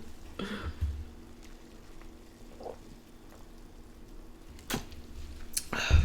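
Quiet sounds of a woman drinking cold soda from a plastic bottle, with a sharp click about five seconds in and a breathy rush of air near the end.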